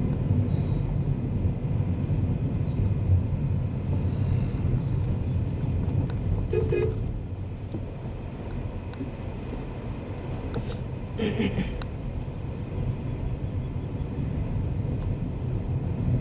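Steady low rumble of road and engine noise from a car travelling along the highway, easing slightly about seven seconds in. Two brief higher-pitched sounds cut in, around seven and eleven seconds.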